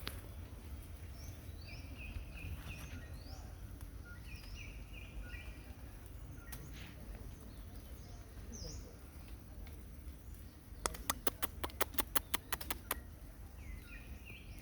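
Short high-pitched chirping calls and quick rising chirps, repeated in little runs, over a low steady rumble. Near the end comes a fast run of about fifteen sharp clicks lasting about two seconds.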